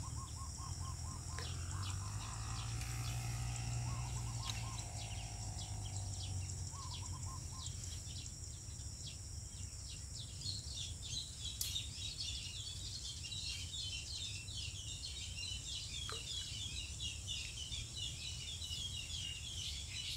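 Outdoor rural ambience: birds chirping and calling over a steady high insect buzz. The chirping grows busier about halfway through, and a faint low hum sits under the first several seconds.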